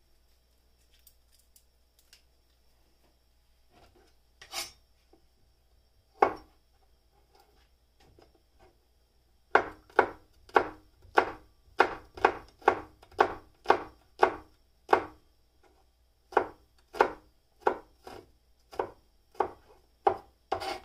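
Cleaver chopping garlic cloves on a cutting board. A couple of single knocks come first, then from about ten seconds in a steady run of chops, about two a second, with a short pause midway.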